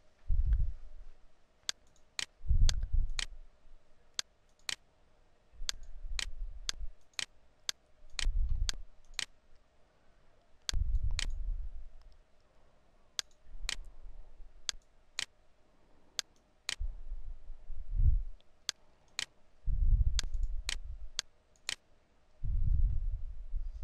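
Computer mouse clicking, many sharp clicks, often in quick pairs, while working through software menus. Short low rumbles come every few seconds and are louder than the clicks.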